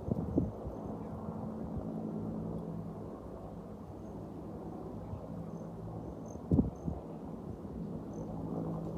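A steady low engine drone with faint high cricket chirps over it, broken by two brief knocks, one just after the start and one about six and a half seconds in.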